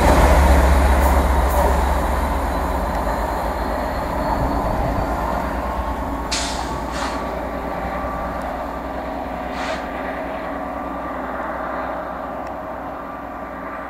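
A Class 67 diesel locomotive and its loco-hauled coaches passing and pulling away. The two-stroke V12 engine's low drone and the wheel and rail noise fade steadily as the train goes off into the distance.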